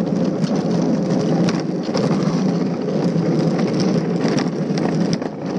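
Luge cart rolling fast down a concrete track: a loud, steady rumble from the wheels on the concrete, with scattered clicks and knocks.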